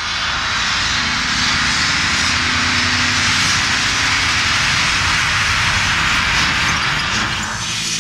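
A loud, steady rushing noise like a jet engine, with a low rumble under it, forming part of a metal song's intro. It cuts off near the end as the band's music comes in.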